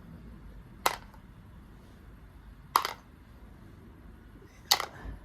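Small metal carburetor parts dropped one at a time into a parts-cleaning can: three sharp clinks about two seconds apart.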